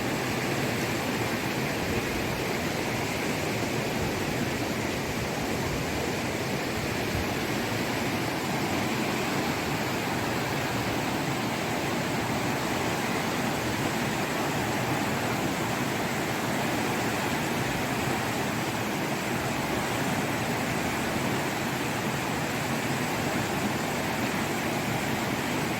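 Fast-flowing floodwater rushing, a steady, even roar of water.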